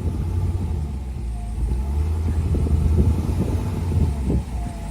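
Vehicle engine running with a steady deep drone while it is driven slowly over soft, washed-out dirt, with irregular crackles from the tyres and ground throughout.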